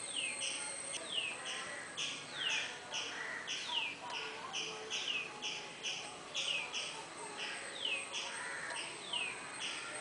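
Birds calling: a quick series of short, evenly repeated high notes, two or three a second, mixed with a falling whistled note about once a second, over a steady high-pitched tone.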